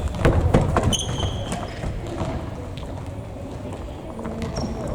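Futsal being played on a gymnasium court: thuds of running feet and ball kicks, with a couple of short high squeaks about a second in and near the end.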